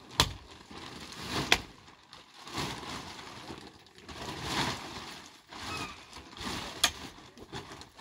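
A long-handled pick digging into stony soil: a few sharp strikes as the blade hits stones, with rough scraping of loosened earth and rocks in between.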